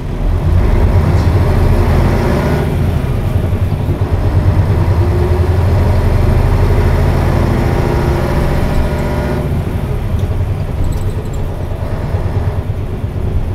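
Isuzu KC-LV280N city bus's V8 diesel engine, heard from inside the bus, pulling away and accelerating. The engine note changes about three seconds in and eases off about nine and a half seconds in.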